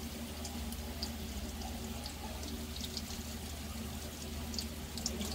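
Salami slices frying in hot oil in a cast-iron pot: a steady sizzle with scattered small pops and crackles, over a low steady hum.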